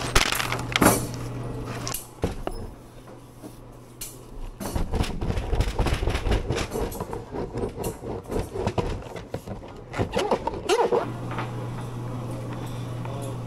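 Antique hand-worked gooseberry cutter rolling candy: the wooden slide is worked back and forth on its ball bearings, giving a dense, irregular clatter and rumble for about six seconds in the middle, with lighter clicks near the start. A steady low hum can be heard at the start and end.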